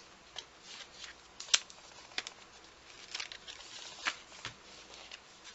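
A small cardboard box and a paper notebook being handled: scattered rustling and light scrapes and taps, with one sharp click about a second and a half in.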